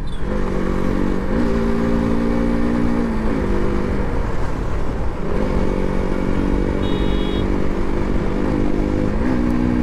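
KTM RC sport bike's single-cylinder engine running hard under way, its note stepping up and down in pitch with the throttle and gear changes. Wind rushes over the helmet microphone.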